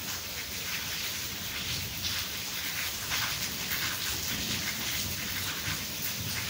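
Rain falling steadily in a cyclone downpour, a constant hiss with a low rumble underneath.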